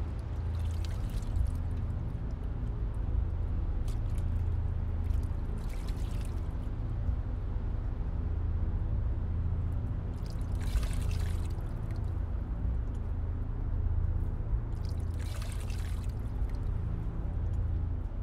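Water scooped up in cupped hands and poured back down, four short splashing pours spread through the stretch, over a low steady droning hum.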